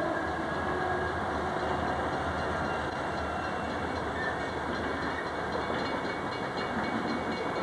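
Cars of a freight coal train rolling past, a steady rumble of wheels on the rails.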